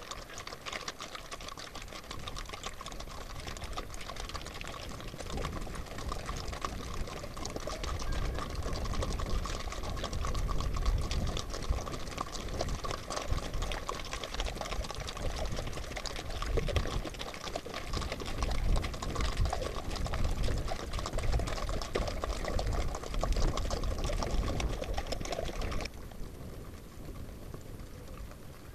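Hooves of a group of Icelandic horses clattering and splashing on a wet gravel track, a dense rapid patter, with wind buffeting the microphone in low gusts. The clatter thins out abruptly near the end.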